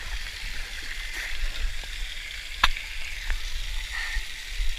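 Water spraying and splashing from a water-park play fountain, a steady hiss, with one sharp knock about two and a half seconds in.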